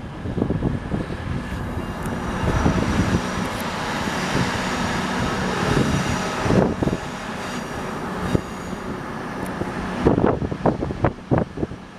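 A Voyager diesel multiple unit pulling away under power: the sound of its underfloor diesel engines and its wheels on the rails builds about a second and a half in and fades after about ten seconds. Wind buffets the microphone near the end.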